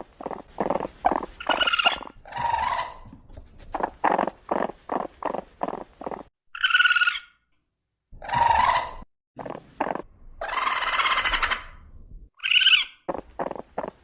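Raccoon vocalizing: runs of quick churring pulses, about four a second, broken by three short high squeals and three longer hissing screeches, the longest near the end.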